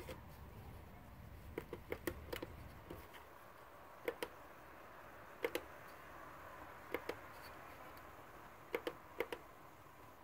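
Light, sharp clicks, some single and some in quick pairs or threes, every second or two over a faint hiss, with a low rumble during the first few seconds.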